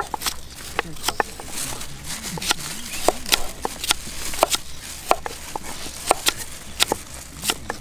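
Kitchen knives slicing red shallots on a wooden stump chopping block: irregular, sharp taps of the blades striking the wood, about two or three a second. Faint voices in the background.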